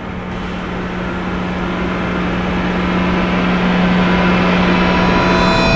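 Baofeng BF-888S walkie-talkie receiving an open channel with no voice: a steady hiss with a low hum under it, growing slowly louder. It cuts off suddenly near the end with a short burst as the transmission drops.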